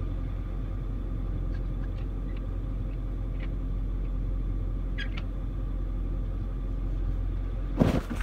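The 2008 Ford F-550's 6.4-litre Power Stroke V8 diesel idling, a steady low rumble heard from inside the cab. A few faint ticks, and a short knock near the end.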